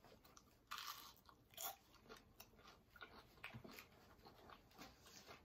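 Faint crunching and chewing of a fried, battered onion ring: a few soft crunches about a second in, then scattered small mouth sounds.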